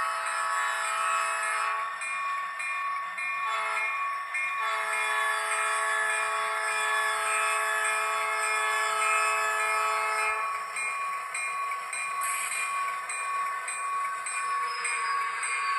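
Sound-equipped HO scale model of an SDL39 diesel locomotive sounding its multi-note air horn in several blasts, the last one long and ending about ten and a half seconds in, with the model's engine sound running underneath.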